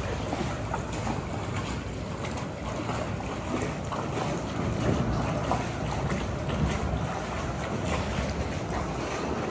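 River water flowing and sloshing around inner tubes as they float, with small scattered splashes and knocks.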